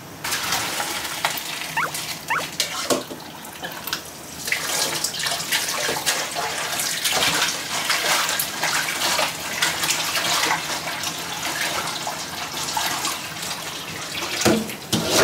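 Water running from a kitchen tap, starting about four seconds in, with scattered clinks and knocks.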